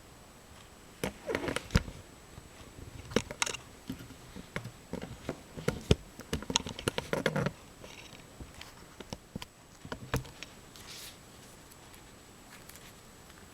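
Irregular taps, clicks and short scratchy rustles of hand work with oil pastels and paper, busiest in the first half and thinning out after about eight seconds, over a faint steady high-pitched whine.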